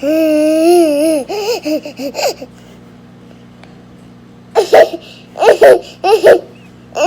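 A baby vocalising: one long, high call lasting about a second, then a few short babbling sounds. After a two-second lull come three short bursts of baby laughter.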